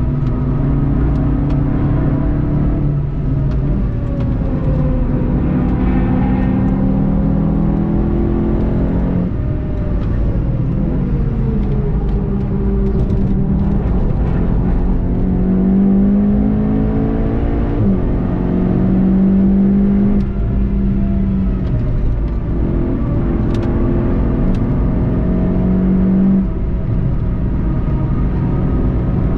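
VW Golf 7.5 GTI TCR's turbocharged 2.0-litre four-cylinder engine heard from inside the car at track speed, its pitch climbing under acceleration, dropping under braking and stepping at gear changes, over steady tyre and wind noise.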